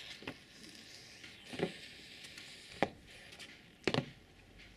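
Soldiers' boots striking the paving in a slow ceremonial march: four sharp, evenly spaced steps, about one every second and a quarter.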